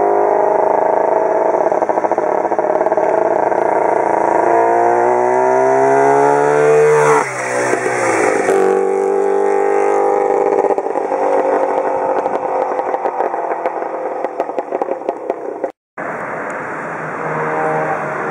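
1929 Scott Power Plus two-stroke twin motorcycle accelerating toward the listener, its pitch climbing, then dropping sharply as it goes past about seven seconds in. The engine runs on more steadily and fades. After a short break near the end it is heard again at close range, running under way.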